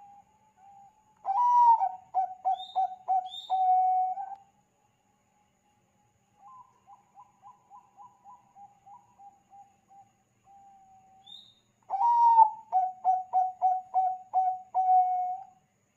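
Zebra dove (perkutut bangkok) cooing in full song. Two loud phrases each open on a higher note and break into a quick stuttering run of coos. Between them comes a softer run of coos.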